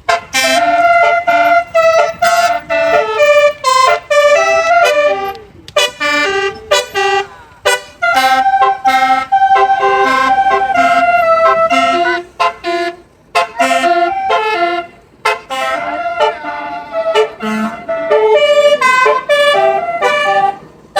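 Telolet horn, a multi-tone bus air horn, playing a melody of quickly stepping notes in phrases separated by short breaks.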